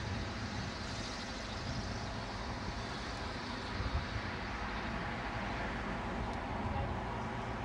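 Steady outdoor background noise: a low rumble with a hiss above it, with no distinct events.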